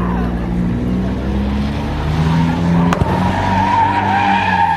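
Car engine running hard with its tires spinning; a loud, wavering tire squeal comes in over the last two seconds, with a sharp click just before it.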